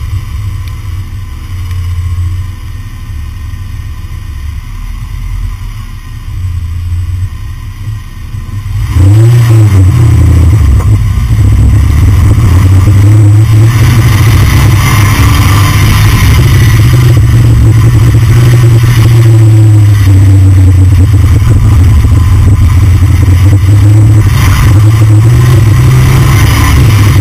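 Car driving, heard from a camera mounted under the body beside the front wheel: low running and road noise. About nine seconds in it jumps to a loud, steady low drone, with a brief rise in pitch as it comes on.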